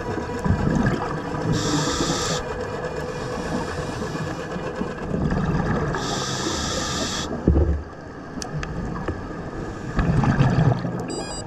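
Underwater sound of a scuba diver breathing through a regulator. Each inhale is a short hiss, heard twice, and the exhaled bubbles gurgle and rumble in between, roughly every four to five seconds. A single dull knock comes a little past the middle.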